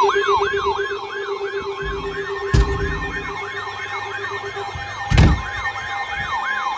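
Electronic siren in a fast yelp, its pitch falling from high to low about three times a second over steady tones. Two sharp thumps cut across it about 2.5 s and 5 s in, the second the loudest.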